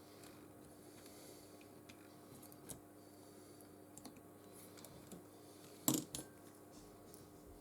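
A few small, sharp clicks and taps of small hard objects being handled on a workbench, the loudest a little before six seconds in, over a faint steady hum.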